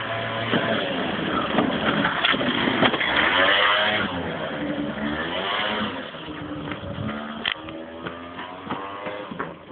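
Engine revving up and down, its pitch rising and falling, loudest in the first few seconds and then easing off.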